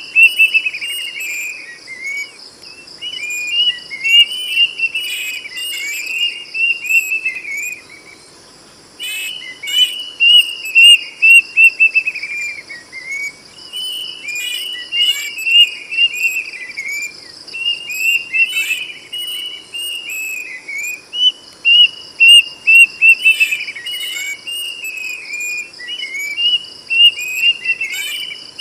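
Kedasih (plaintive cuckoo) singing loud whistled phrases, each a run of notes that steps down in pitch, repeated one after another with a short pause about eight seconds in. A steady high insect drone runs underneath.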